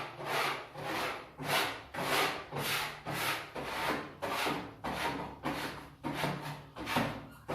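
Rhythmic scraping, nearly two strokes a second, of a small hand shovel or scraper cleaning droppings from a budgie cage floor.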